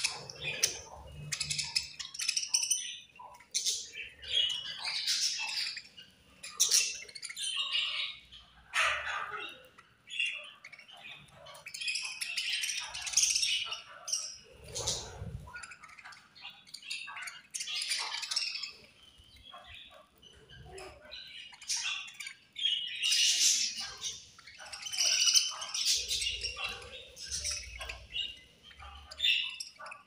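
Flock of budgerigars chirping and chattering in bursts as they crowd together to feed, with short sharp clicks mixed in.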